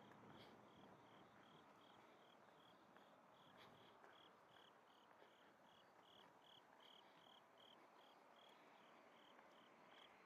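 Faint, rhythmic chirping of an insect in the grass, about three short high chirps a second, over a quiet background hiss.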